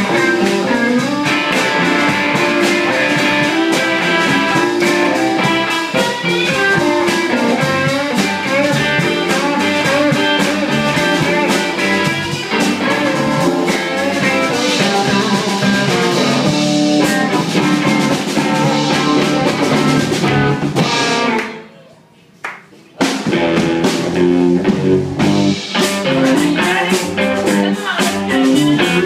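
Live blues band playing, electric guitar over a drum kit. Near the end the music stops almost dead for about a second and a half, then the band comes back in.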